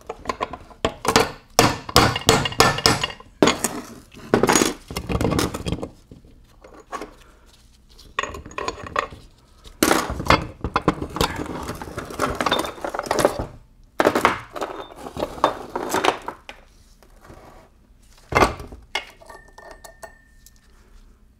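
Steel hammer striking an aluminum drift in a quick run of blows, driving a cylindrical roller bearing out of a heated aluminum T5 transmission case; then metal clinking and clanking as the counter gear and bearing are worked free of the case by hand, with one sharp knock near the end.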